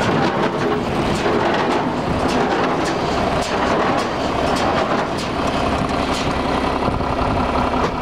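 1978 John Deere 336 wire-tie square baler running off a tractor's PTO: a steady mechanical clatter from the driveline, flywheel and gearbox over the tractor engine's drone, with frequent metallic clicks and rattles.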